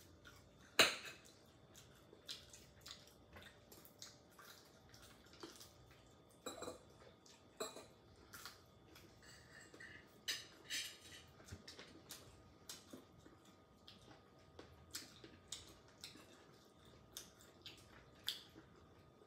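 Fork clicking and scraping on a plate with small wet eating sounds, an irregular scatter of light clicks, the sharpest about a second in.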